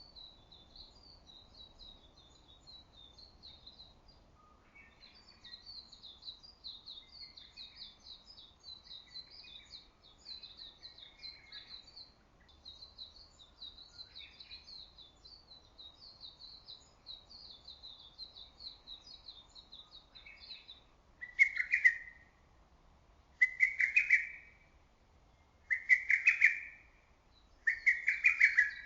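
Lesser cuckoo calling loudly, its phrase repeated about every two seconds from about three quarters of the way in. Before that a higher, fast, unbroken twittering of another small bird runs on, with a few fainter lower calls.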